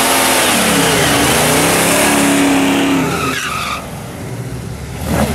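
Buick V8 muscle cars doing burnouts, engines revving up and down while the rear tyres spin and squeal. The engine noise drops off about three and a half seconds in.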